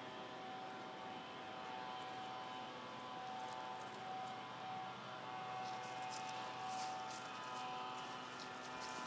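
A steady engine drone holding one pitch. From a little past halfway, dry leaves crackle and rustle.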